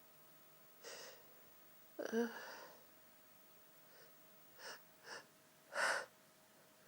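A person's sneezing fit. There is a sharp intake of breath, then a loud voiced sneeze about two seconds in. Two quick catching breaths follow, then a second loud sneeze near the end.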